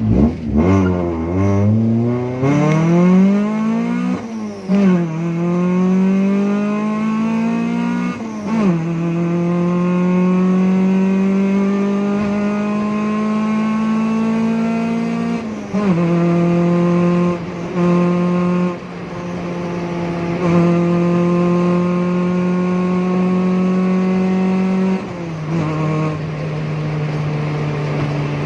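Honda Civic EK's D15B single-cam VTEC four-cylinder engine pulling through the gears. The pitch climbs and drops back at gear changes about 2, 4 and 8 seconds in, then rises slowly for a long stretch, with brief lift-offs around 16 to 18 seconds and a drop to a lower steady note near the end.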